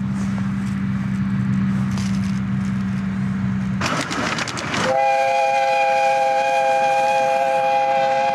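A steady low engine hum, then about a second of loud hiss. Just before the halfway point a narrow-gauge steam locomotive's whistle starts, sounding one long, steady chord of several notes.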